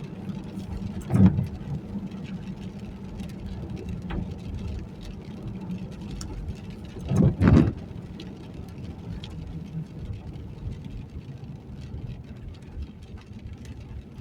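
Steady engine and road noise inside a moving car, broken by two short loud thumps, one about a second in and a double one about seven seconds in.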